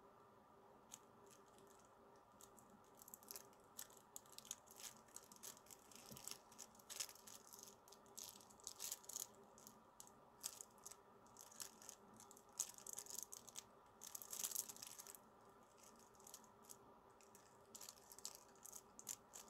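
Faint, irregular small clicks and crinkly rustles of handling noise, beginning about a second in, over a low steady room hum.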